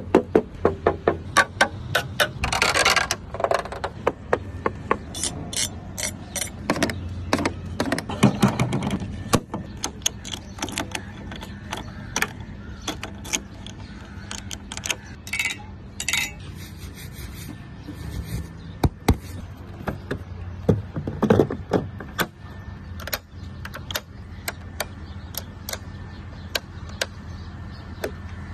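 Hands working the controls and bodywork of a Keeway Sixties 300i scooter: many sharp clicks and knocks at uneven spacing as switches, the ignition lock and the plastic panels are pressed and tapped, with a few short scraping sounds and a low steady hum underneath.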